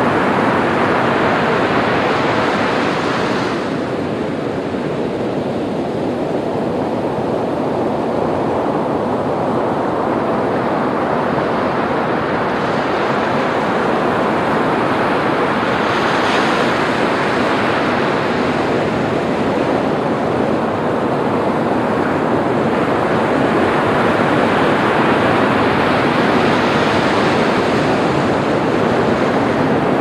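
Ocean surf: waves breaking and washing in a continuous rushing noise, surging and easing, with a brief dip about three and a half seconds in.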